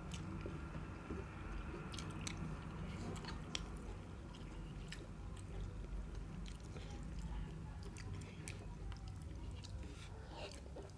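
Close-up chewing of food, a person biting and chewing with scattered small crisp mouth clicks.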